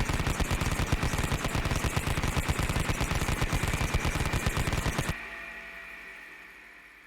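Vulcan rotary cannon firing one continuous, very rapid burst of about five seconds that cuts off suddenly. A steady high whine from the spinning barrels lingers and fades away after the firing stops.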